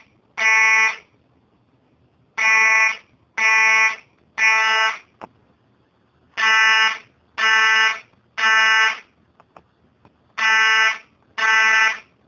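Fire alarm horn sounding a buzzing tone in groups of three half-second blasts with a short pause between groups. This is the temporal-three pattern that signals evacuation.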